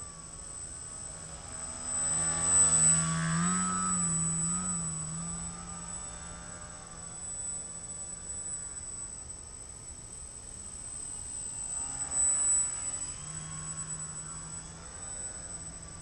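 Electric motor and propeller of a small EPP foam RC plane (SunnySky 2204 1800kv brushless motor) buzzing in flight. The pitch wavers up and down with the throttle. It grows louder from about two seconds in and again briefly around twelve seconds, with a steady high whine throughout.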